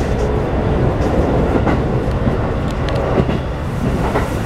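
Keikyu New 1000 series electric train heard from inside the car: the Toyo IGBT-VVVF inverter's rising whine fades out just after the start, leaving a steady rumble of wheels on the rails with a few sharp clacks.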